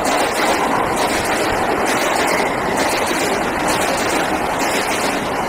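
Suburban commuter train running fast past a station platform: a loud, steady rush of wheels on rail and passing coaches.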